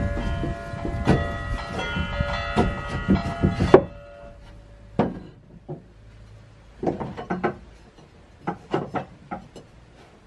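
Bell-like chiming tones over knocks that cut off abruptly about four seconds in, followed by scattered wooden knocks and clunks in small clusters as plywood divider boards are handled and fitted into a wooden truck-camper storage box.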